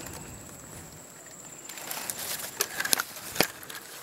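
Dry leaf litter rustling and crackling, growing busier in the second half with a few sharp clicks and snaps.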